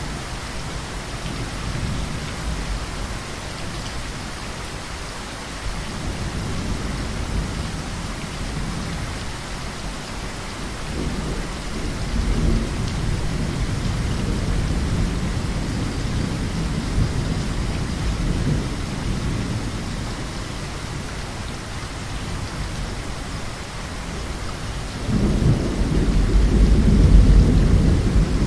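Heavy rain falling steadily, with thunder rumbling low underneath. A louder roll of thunder builds near the end.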